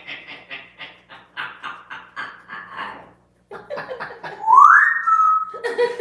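African grey parrot vocalising: a rapid string of short chattering notes, about four a second, then a loud whistle that rises and holds steady about four and a half seconds in.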